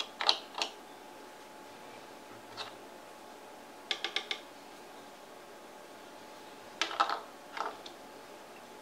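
Small plastic paint pots clicking and knocking as they are taken from and put back on the board's edge: a couple of sharp clicks, then a quick run of four, then a few more.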